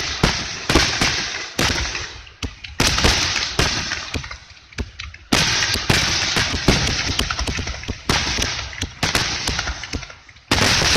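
Fireworks display: a rapid series of aerial shell bursts, sharp bangs each followed by a fading rumble and dense crackling, coming in waves with a fresh loud volley about half a second before the end.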